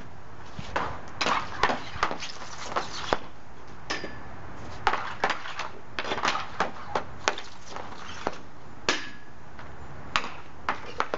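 Hockey stick and pucks on a plastic shooting pad: irregular sharp clacks and slaps as shots are taken, a few followed by a short ringing tone.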